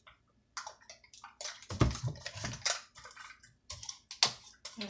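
Irregular close-up crackling, clicking and rustling of food and dishes being handled at a meal, with a couple of dull knocks about two seconds in.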